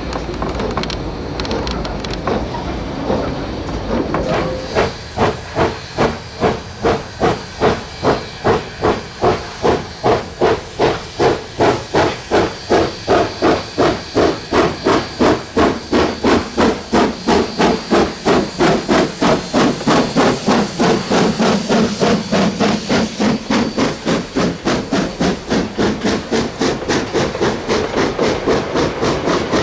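Steam locomotive A 428, a 1909 engine, working hard upgrade, its exhaust chuffing in a loud, even beat of about two a second that quickens a little as it passes and its carriages follow. Before that, a few seconds of steady rumble from the moving train.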